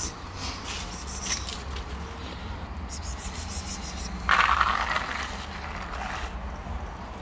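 Dry cat kibble poured from a plastic scoop onto a foam tray: a loud rush of pellets about four seconds in, lasting under a second. Before it come lighter scrapes and clicks as the tray is handled.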